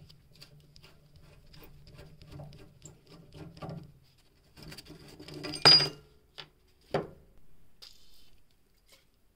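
Steel screwdriver blade scraping and picking at a rusted bolt on a cast-iron balance scale, a run of small scratchy clicks. A sharp metal clink comes about five and a half seconds in, the loudest sound, and a lighter knock about a second later.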